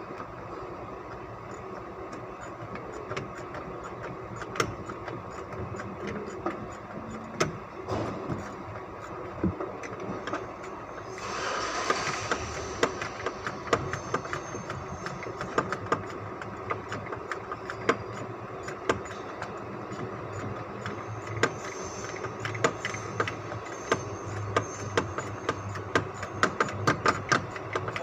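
2005 Ford Expedition's V8 engine running with a steady low hum and many irregular sharp ticks, the vehicle misfiring. A brief hissy swell comes about twelve seconds in.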